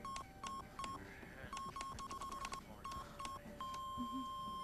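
Censor bleep tone from an editing console: about a dozen short single-pitch beeps, each starting with a click, coming unevenly and crowding together in the middle. Then one long held bleep starts about three and a half seconds in.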